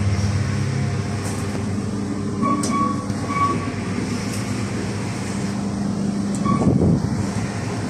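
KONE passenger lift car travelling, its drive and cabin giving a steady hum. Short electronic beeps sound a few times around the middle, and a button beep near the end is followed by a brief louder rumble.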